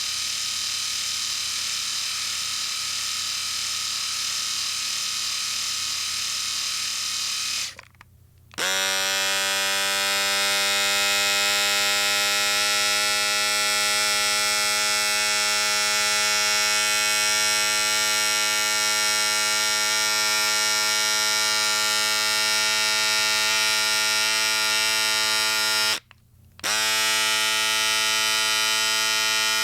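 Electric shaver running. A hissy buzz stops about eight seconds in, and after a short break a shaver starts up with a steadier, more tonal hum that quickly comes up to speed. Near the end it is switched off for a moment and started again.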